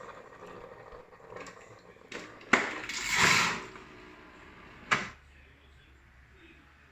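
Philips 5360/10 appliance making the strange noises it is being checked for: a faint hum dies away, then a sharp click, a brief loud hiss, and a second sharp click a couple of seconds later.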